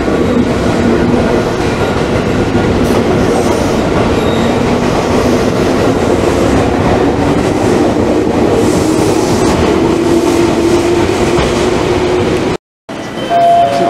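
JR West 221 series electric train pulling out of the platform and passing close by: the noise of its wheels and motors, with a hum that rises slowly in pitch as it accelerates. It cuts off suddenly near the end, followed by a short steady tone.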